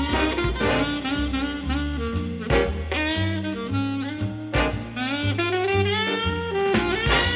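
Jazz music with saxophone and brass over bass and drums, played back through a high-end hi-fi system of tall floor-standing loudspeakers driven by a Gryphon Commander preamplifier and Gryphon Apex power amplifier.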